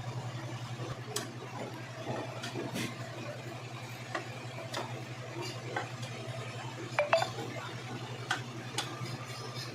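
Hand tools working the gearbox-cover bolts of a Honda Activa 6G scooter: scattered metallic clicks and knocks every second or so, with one ringing clink about seven seconds in, over a steady low hum.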